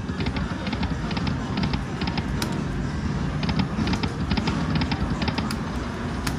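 Slot machine electronic sound effects: quick high clicks in short clusters, repeating through the spin, over a steady low casino hum.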